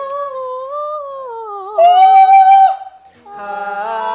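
A woman singing a wordless line that slides up and down, then belting a loud high note for about a second before breaking off. After a brief gap, another sung passage starts near the end.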